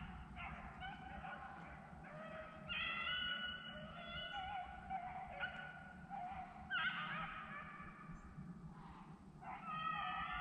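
A pack of beagles baying in full cry, several dogs giving long, wavering bawls that overlap and swell in waves, loudest near the middle and the end: hounds running a rabbit on its scent trail.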